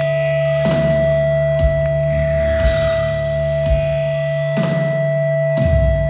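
Live sludge-metal band playing a slow, heavy section: drum and cymbal hits about once a second over a held low bass-and-guitar drone, with a steady high ringing tone on top.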